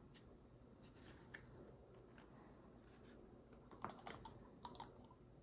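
Near silence with scattered faint, light clicks and taps, strongest in a small cluster about four seconds in, from small styrene model-kit parts being handled on the bench.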